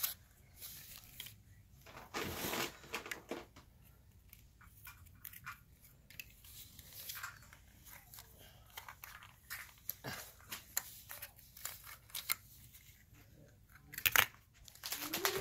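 Plastic surprise eggs being handled and pried apart: scattered light clicks and rustles of the plastic shell halves, with a louder click near the end.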